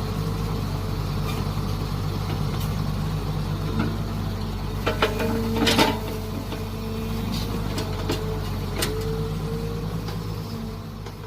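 Mini excavator running steadily at work, its engine holding a constant note while a higher whine comes and goes as the hydraulics move the arm. A few sharp knocks and scrapes about five to six seconds in, as the bucket digs.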